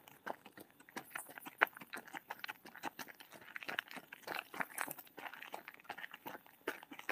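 Faint, irregular crunching and crackling of someone moving over dry debris, with one sharper click a couple of seconds in.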